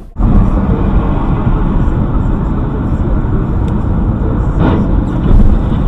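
Steady, loud road and engine noise from inside a car driving along a highway, heard through a dashcam's microphone, with most of its weight in a low rumble.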